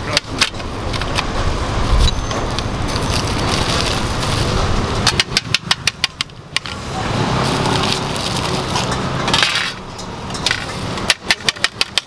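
A knife chopping fruit on a cutting board in two quick runs of sharp chops, about six a second, one in the middle and one near the end, over steady street traffic noise.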